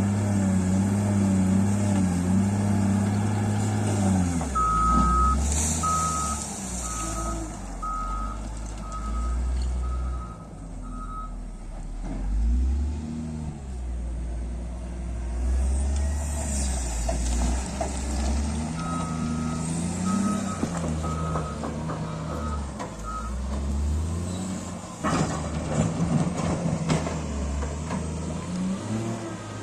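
Heavy machinery diesel engine running and changing speed, with its reversing alarm beeping about once a second in two runs of several beeps. A burst of clatter comes near the end.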